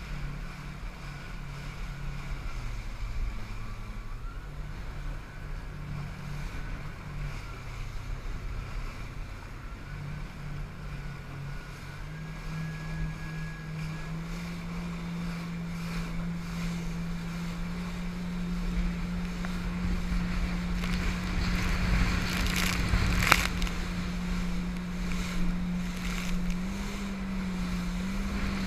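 Jet ski engine running at speed, its pitch stepping up and down at first and then holding steady and higher, over rushing water and wind on the microphone. About two-thirds of the way through, the water noise swells and there is one sharp slap as the hull hits a wave.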